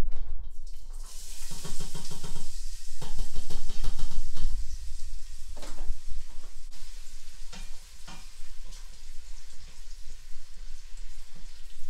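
Chopped red onions sizzling as they drop into hot palm oil in a stainless steel pot; the sizzle starts about a second in and is loudest over the next few seconds. A spatula clicks and scrapes against the pot as the onions are stirred.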